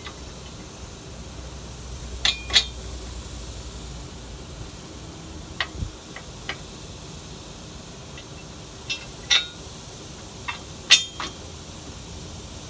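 Sharp metallic clinks of steel bolts, washers and nuts knocking against a steel hitch-mounting bracket as it is fitted by hand. About ten scattered clinks, the loudest about two and a half seconds in and again near the end.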